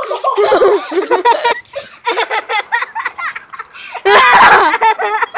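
Children laughing and giggling in repeated bursts, the loudest about four seconds in.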